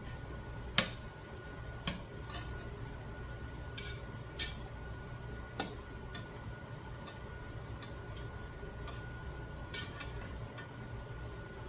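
A metal utensil clicking and tapping against a cooking pan a dozen or so times while chicken is turned and checked, the loudest knock about a second in, over a steady low hum.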